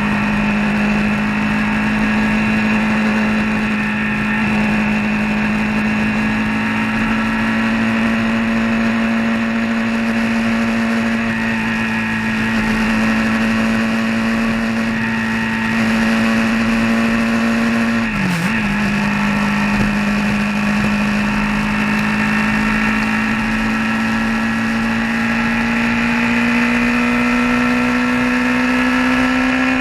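A vehicle engine running steadily at cruising speed, heard onboard. Its pitch dips briefly a little over halfway through as the throttle is eased off, then climbs slowly as it speeds up.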